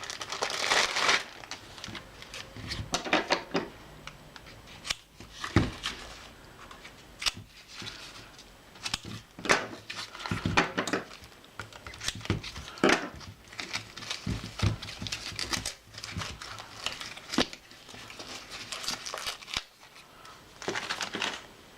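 A small parcel being unwrapped by hand: irregular crinkling and tearing of the wrapping, with scattered sharp clicks and taps.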